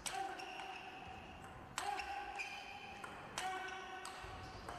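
A table tennis ball being hit back and forth in a rally, sharp clicks of ball on bat and table. The loudest hits come about every second and a half to two seconds, each with a short ringing tail.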